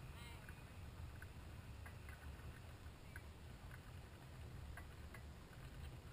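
Near silence: a faint low rumble with a few faint, scattered ticks.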